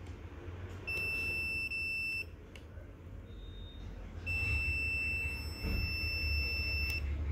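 Multimeter continuity beeper sounding two long, steady, high-pitched beeps: the first lasts about a second and a half, the second nearly three seconds. A short, fainter chirp comes between them, and a low hum runs underneath.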